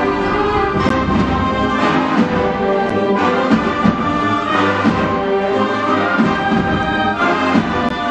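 Full symphonic concert band of woodwinds, brass and percussion playing a mambo, with sustained chords over sharp percussion strokes.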